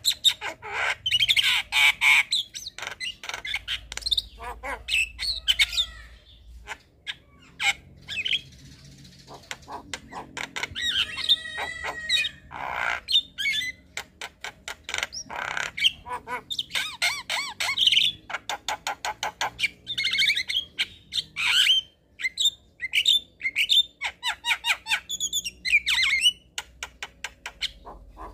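Javan mynas calling: quick runs of harsh, clicking chatter and squawks mixed with short whistled notes, easing off briefly about seven seconds in before resuming.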